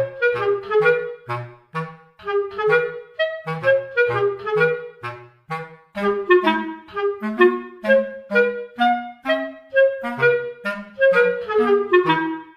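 Playful background music: a bouncy melody of short detached clarinet-like notes over a plucked-sounding bass line.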